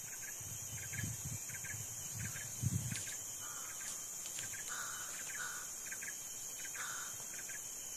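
Insects droning steadily at a high pitch, with short chirps repeating about once a second and a few soft low thumps in the first three seconds.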